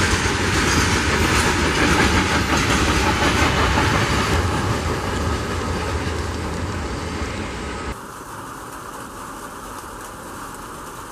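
Freight train wagons rolling past on the rails, loud at first, the noise easing as the last wagons move away; about eight seconds in it cuts abruptly to a much quieter steady background.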